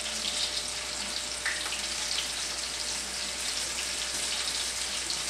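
Breaded rabbit pieces frying in hot oil: a steady sizzle with scattered small crackles.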